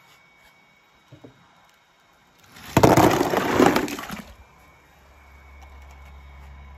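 A sudden loud crashing noise starts about two and a half seconds in and dies away over about a second and a half. A low steady hum begins shortly after.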